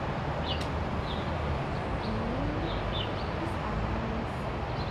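Outdoor ambience: a steady background hum with small birds giving short, high chirps, repeated irregularly every half second or so.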